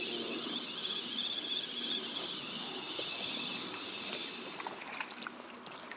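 Spinning reel being cranked steadily as a lure is retrieved, a faint high whir, over water and wind noise around a small inflatable boat, with a few light clicks near the end.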